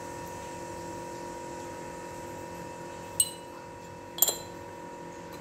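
Two light clinks of kitchenware, about a second apart, a spoon or dish knocked against glass or ceramic, over a steady background hum.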